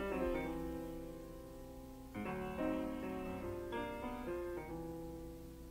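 Soft piano music: held notes and chords that ring and fade, with a new phrase coming in about two seconds in and dying away toward the end.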